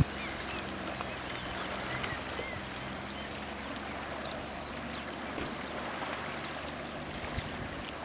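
Small open boat's outboard motor running steadily as it pulls away, a low hum that grows fainter in the second half, over water lapping.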